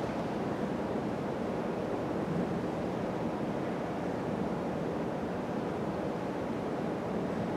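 Steady, even background hiss with a low rumble: room noise, with no distinct event standing out.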